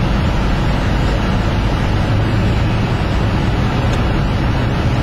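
Car engine and road noise heard from inside the cabin while driving, a steady low drone that holds an even level throughout.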